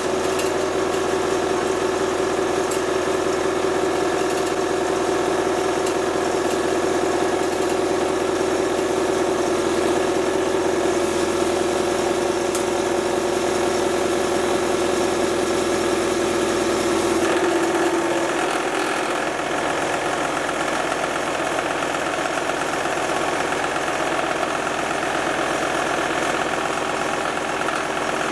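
Small electric home candyfloss (cotton candy) machine running, its motor spinning the heated sugar head with a steady mechanical hum of several level tones while the sugar is spun out into floss. About two-thirds of the way through the hum changes in tone, then carries on steadily.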